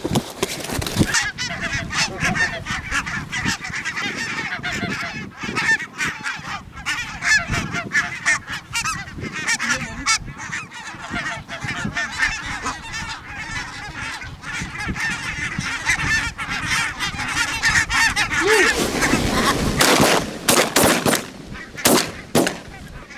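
A large flock of barnacle geese calling in a dense, continuous chatter as it flies in. Near the end, several shotgun shots follow in quick succession.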